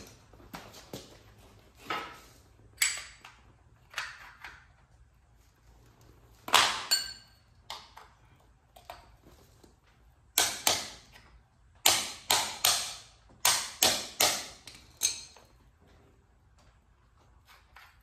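Irregular sharp metal-on-metal knocks and clanks, some leaving a short ringing ping. There are scattered single strikes, then a quick run of them between about ten and fifteen seconds in.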